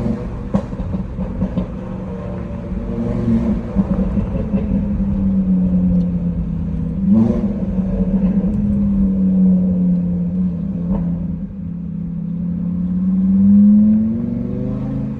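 Five-cylinder car engine through a Milltek exhaust, held at revs with a steady drone that swells briefly about seven seconds in and climbs again near the end before dropping. A handful of sharp exhaust pops and crackles break through it.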